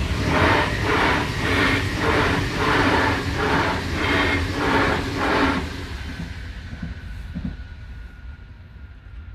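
A Munich S-Bahn electric multiple unit (DB class 423) passing over the level crossing, with a pulse of wheel noise about twice a second as each bogie goes by. The pulses stop after about five and a half seconds and the sound fades, leaving a faint steady tone.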